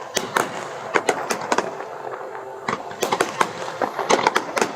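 Aerial fireworks exploding overhead: a rapid, irregular string of sharp bangs, thickest in the second half.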